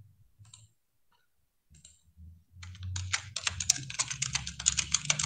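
Computer keyboard being typed on rapidly. A couple of isolated clicks come first, then a fast, continuous run of keystrokes starts about halfway through.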